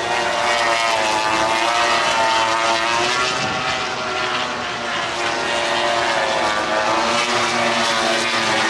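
MotoGP racing motorcycle's four-cylinder engine at full race pace, its note rising and falling in pitch again and again as it passes.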